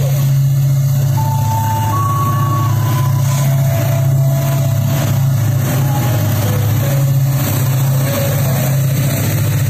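KAI CC 205 diesel-electric locomotives hauling a Babaranjang coal train past at low speed, giving a heavy, steady engine drone with some clatter from the wheels. A few short high steady tones come and go in the first half.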